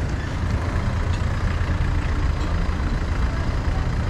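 Steady low rumble of a car's engine and road noise, crawling in slow traffic, with a few faint scattered ticks.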